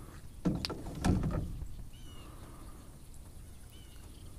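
Two short thumps with some splashing rustle as a small redfish on the hook is handled and flops beside the boat, about half a second and a second in. After that it is quiet apart from a few faint, short high chirps.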